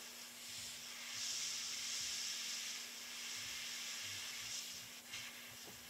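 Airbrush spraying black paint through scale netting onto a lure: a steady airy hiss that swells about a second in and eases off near the end, over a faint steady low hum.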